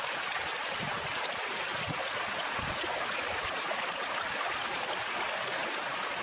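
Shallow rocky stream running steadily over stones, an even rushing of water.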